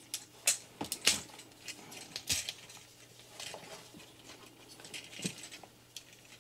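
Hard plastic parts of a Transformers Optimus Prime action figure clicking and tapping as they are handled and moved, a dozen or so separate light clicks with short gaps between them.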